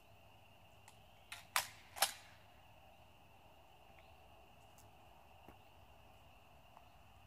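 An Iver Johnson PAS12 pump-action 12-gauge shotgun being fired: three sharp bangs in quick succession about a second and a half in, the last two the loudest, with a short echo trailing the last. A faint steady high insect chirring runs underneath.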